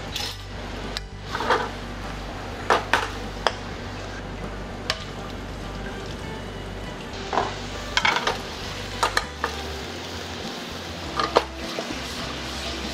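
A steel wok and utensils knocking and clinking against each other and the metal range at irregular intervals, over a steady hiss of sizzling, as broccoli is blanched, drained and tossed.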